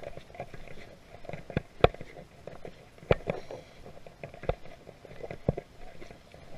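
Footsteps of a person walking over rough ground: irregular thumps, the heavier ones about a second apart, with rustling in between.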